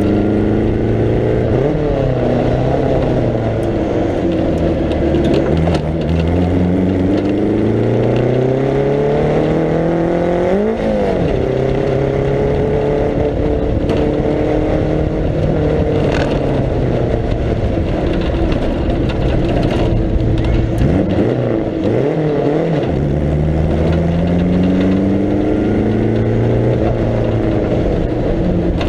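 1937 Riley 12/4 Sprite Special's four-cylinder engine at racing speed, heard onboard from the open cockpit. The revs climb for several seconds, peak and drop sharply about ten seconds in, sag low a little after twenty seconds, then build again near the end. The preselector gearbox has lost second gear, so the car is run on first and third only.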